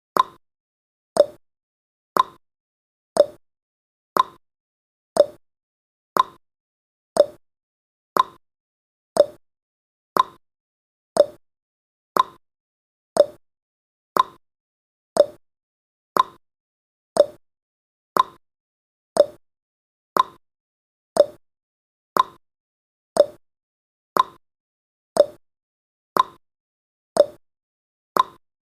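Countdown timer's tick sound effect: one short, sharp tick each second, alternating between a higher and a lower pitch like a tick-tock.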